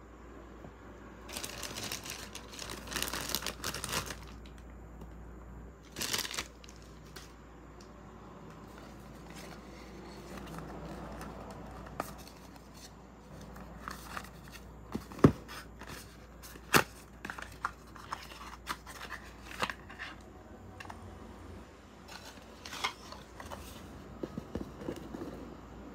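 Packaging rustling and crinkling as beauty products are handled, then a run of light taps and knocks as small cartons and bottles are picked up and set down on a table, two of them louder about halfway through.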